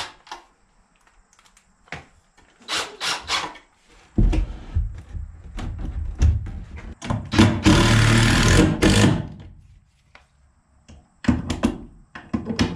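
DeWalt cordless drill driving screws into a wooden frame. A few short knocks come first; then the drill runs in several spells, the loudest lasting about two seconds near the middle, with another run near the end.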